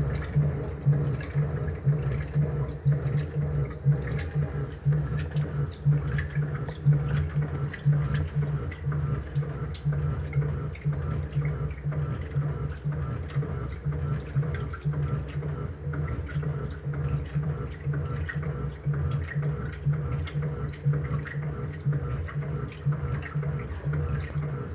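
Electrolux LT09B top-loading washing machine running: a steady low motor hum that pulses slightly, with water sloshing and splashing in the tub.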